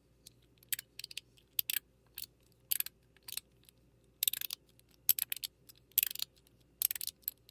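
Mechanical fidget slider, PEI internals under a Zerk shell, clicking as the shell is slid back and forth: sharp clicks, some single and some in quick runs, at irregular intervals.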